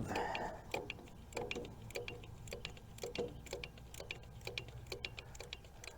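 Quarter-inch drive socket ratchet clicking in short, irregular runs as it backs out a starter mounting bolt with small strokes.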